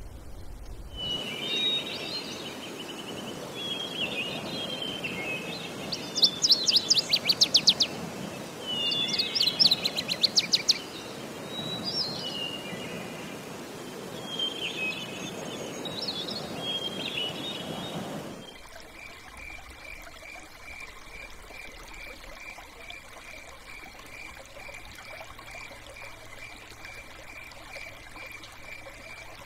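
Birds calling and chirping in varied high phrases over a steady wash of running water, with two loud rapid rattling trills in the middle. About two-thirds of the way in the birds stop, leaving a quieter, steady high pulsing trill over softer water noise.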